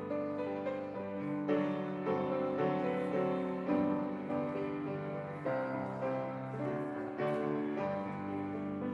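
Piano playing chords, with notes held and overlapping as new ones are struck.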